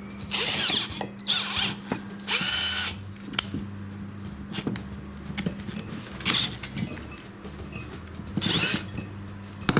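Cordless drill/driver run in five short bursts, twisting steel tie wire tight, with light clicks of wire and metal between the bursts.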